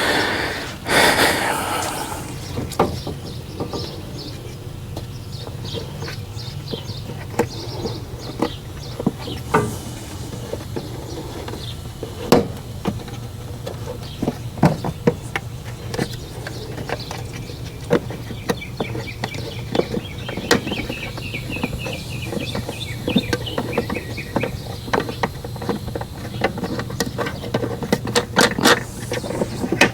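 Hand tools clicking and clanking on the metal parts of a Generac 20 kW home standby generator's mixer and intake as it is taken apart, with a run of rapid ticks partway through and a steady low hum underneath.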